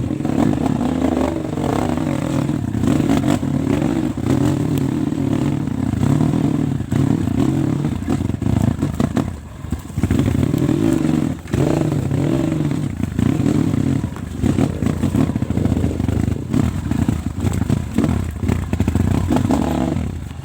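Small off-road trail motorcycle engine running under changing throttle as it rides, its note shifting up and down. The level dips briefly about nine and again about eleven seconds in.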